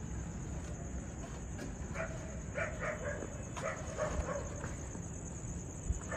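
A dog barking in a quick run of short, high barks about two seconds in, tailing off by about five seconds.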